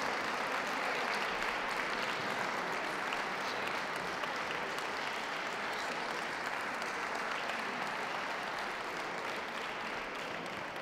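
Audience applauding, easing off slightly near the end.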